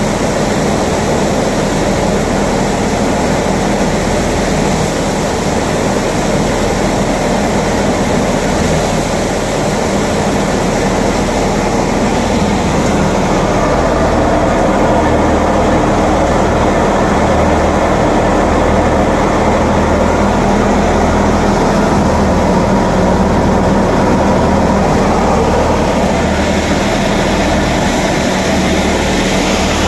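Tractor-driven Diamond wheat thresher running under load as wheat sheaves are fed in. A loud, steady machine noise: the threshing drum and the tractor engine driving it, with an even low pulsing.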